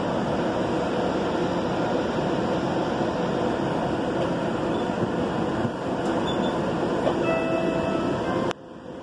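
Valley Metro light-rail train running, heard from inside the passenger car as a steady rumble. A thin, steady whine joins it about seven seconds in, and the noise drops off abruptly near the end.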